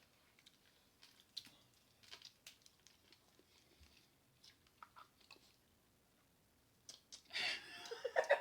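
Close-up chewing of seafood-boil food, with soft crunches and small clicks. Near the end a louder wavering sound comes in.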